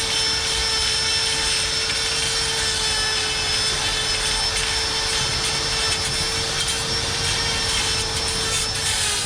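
Steady machine noise: a constant hiss with a thin steady hum that fades out just before the end.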